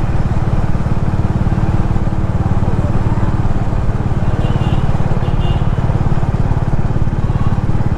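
Vehicle engine running steadily on the move, a constant low engine sound with road noise and no change in pace.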